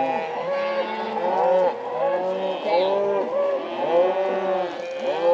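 A herd of cattle mooing, many overlapping calls in a steady chorus.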